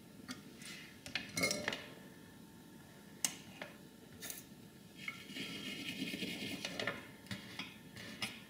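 Small metal hand tools clinking and clattering as they are picked up and put down on a workbench: several sharp clicks and a longer rattle about five to seven seconds in.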